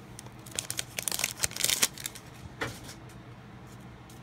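Foil wrapper of a Pokémon Generations booster pack being torn open and crinkled, a quick run of crackles over the first two seconds, one more rustle shortly after, then quieter.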